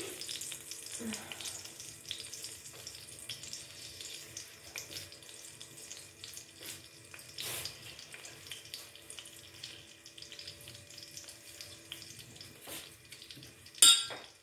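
Ghee melting in a hot iron kadhai on a gas flame: a faint, even sizzle with scattered small crackles. A single sharp click sounds about a second before the end.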